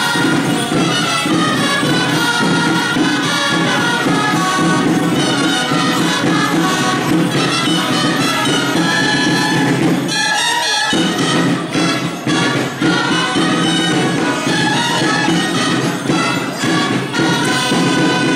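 Traditional Catalan street-band music from reedy wind instruments and drums, playing a dance tune, with a brief break in the music about ten seconds in.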